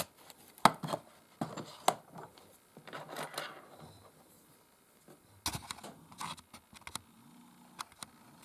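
Scattered small clicks and taps of a spring hinge tool and metal eyeglass frame being handled, with a brief scraping rustle about three seconds in.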